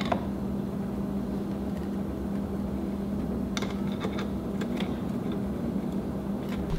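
Steady low electrical hum of room tone, with a few faint light clicks about halfway through and near the end as small screws are tightened on a rifle scope's mounting rings.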